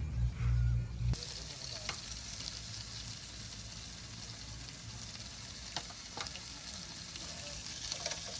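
Food sizzling in a hot pan, an even hiss broken by a few sharp clicks of a utensil. It comes in abruptly about a second in, after a moment of music.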